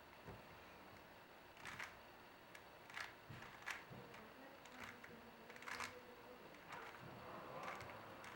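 Rubik's Cube layers being turned by hand: a string of faint plastic clicks and clacks at irregular intervals, about seven in all.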